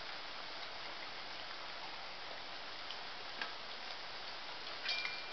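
Besan papdi discs deep-frying in hot oil in an aluminium kadhai: a steady sizzle with scattered small pops and crackles. Near the end there is a sharper click with a brief ring.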